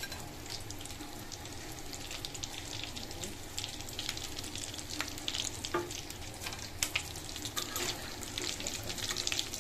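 Breaded potato-and-egg patties deep-frying in a pan of hot oil: a steady sizzle full of small crackles and pops. A few light clicks of the metal spatula against the pan as the patties are turned and lifted out.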